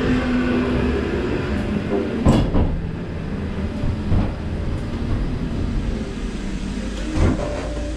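Ghost train car running along its track with a steady low rumble, and three sharp knocks, the loudest about two seconds in.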